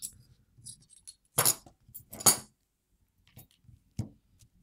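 Metal clinks and clatters of a brass lock cylinder and a pin tray being handled and set down on a rubber mat. There are two louder clatters in the middle and a single sharp click near the end.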